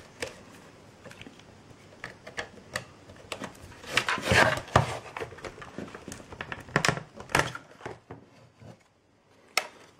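A hard plastic external hard-drive case being handled and pried at with a knife: scattered clicks and short scrapes, with a longer, louder scraping run about four seconds in and a few sharp clicks near the end.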